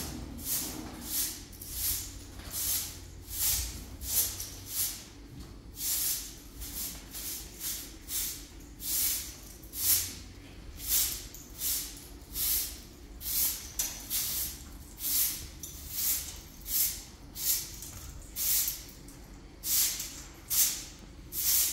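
A steady rhythm of short, high hissing strokes, about four every three seconds, from some repeated hand work.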